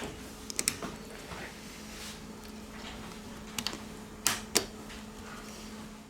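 Sharp clicks and taps of small tools and phone parts being handled during reassembly of a smartphone, in pairs about a second in, near 3.5 s and the loudest pair past the middle, over a steady low electrical hum.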